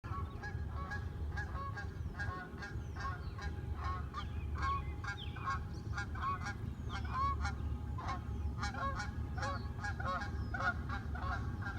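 A flock of geese honking, many short calls overlapping several times a second, over a steady low rumble.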